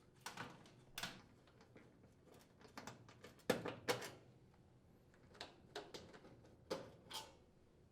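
Faint, scattered clicks and light knocks of a screwdriver and screws as screws are taken out of the bottom of a gas range's front manifold panel, the loudest pair about halfway through.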